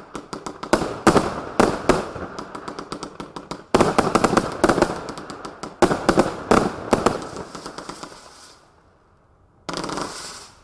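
A 108-shot firework cake firing: a fast string of sharp shell bursts, several a second, with crackling between them. It falls quiet, then a short dense crackle comes near the end.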